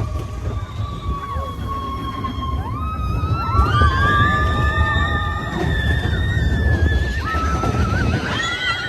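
Steam train whistle blowing several long blasts, each sliding up in pitch as it opens and then holding steady, over a low running rumble.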